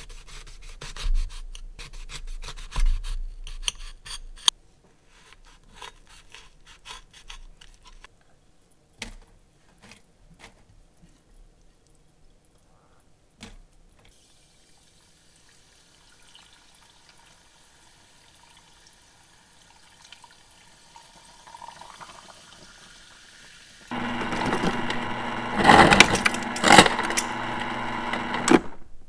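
Kitchen knife sawing through a lemon onto a ceramic plate in quick repeated strokes, then a few small knocks of handling. Near the end a refrigerator door ice dispenser runs loudly for about four seconds with a steady hum, ice clattering into a glass jar.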